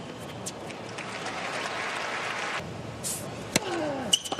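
Stadium crowd applauding, swelling and then cut off abruptly a little over halfway through. Near the end there is a sharp knock and a short falling squeak.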